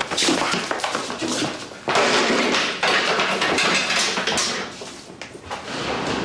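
Two men fighting: strained grunts in the first couple of seconds, then scuffling, clattering and knocks as furniture and objects are shoved and knocked about.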